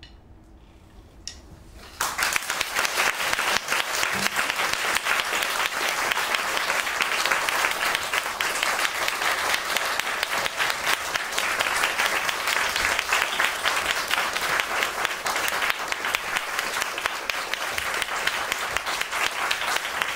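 Audience applauding at the end of a live piece, breaking out suddenly about two seconds in after a brief hush and carrying on steadily.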